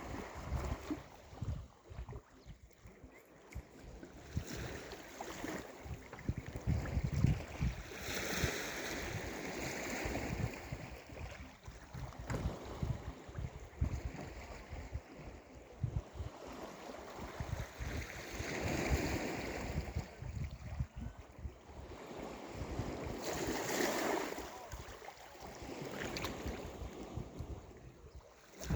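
Sea waves breaking and washing up the shore, swelling three times in long surges, with wind buffeting the microphone.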